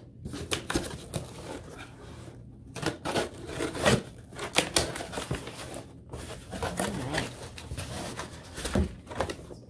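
A cardboard shipping box being opened: a box cutter slicing through the packing tape, the tape pulled away and the flaps scraping and rustling, heard as irregular runs of sharp scratches and crackles with short pauses between.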